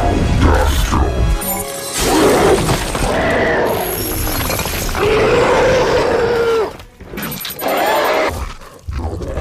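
A string of spliced sound effects cut abruptly one into the next, including a crash of shattering and a drawn-out call that slides in pitch.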